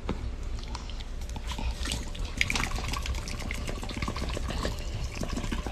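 Dog licking close to the microphone: a steady run of wet clicks and smacks.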